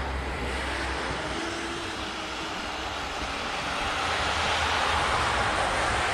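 Kyosho Blizzard 2.0 RC snow tracker driving on its 1/16-scale brushless motors, a steady whirring that swells louder a few seconds in.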